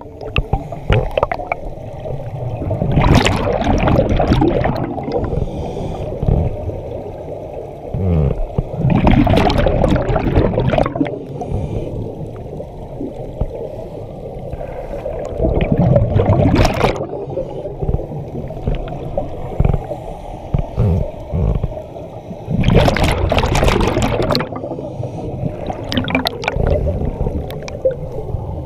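Scuba divers' exhaled air bubbling out of their regulators underwater: four loud bubbling bursts about every six to seven seconds, following the pace of breathing, over a steady low rumble of water.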